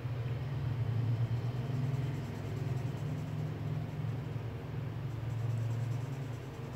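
A low rumble that swells and fades, much like a motor vehicle passing outside.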